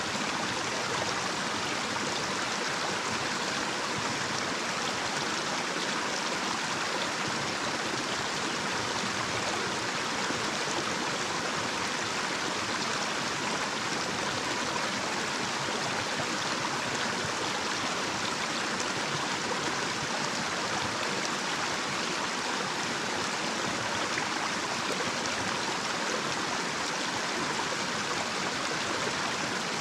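Water of a small, shallow mountain stream running over a little cascade, a steady rushing flow that does not change.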